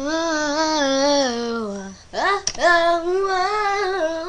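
A young girl singing wordless held notes: a long wavering note that slowly slides down, then a quick upward swoop about halfway through into a second long wavering note.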